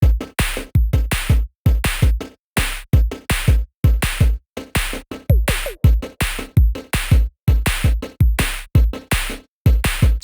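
Electronic music with a punchy drum-machine beat and heavy bass, the hits stopping dead between strokes, about two to three a second.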